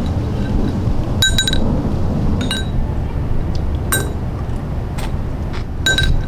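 A spoon tapping a bowl: sharp ringing clinks, one every second or so, the first a quick double.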